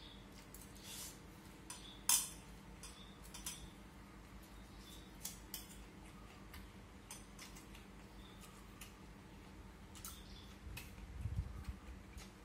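Chopsticks and a spoon clicking and tapping against a rice bowl during eating, in scattered irregular clicks with the loudest about two seconds in. A brief low rumble comes near the end.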